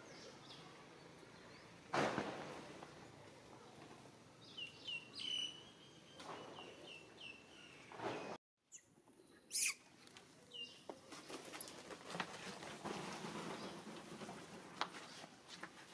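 A run of short, high chirping calls about four to six seconds in, among rustling. After a break about eight seconds in come scattered clicks and rustling.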